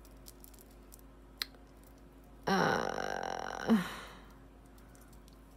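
A short throaty vocal sound from a woman, about a second and a half long, falling in pitch at the start and ending with a louder blip. A few light clicks of earrings being handled on the towel come before it.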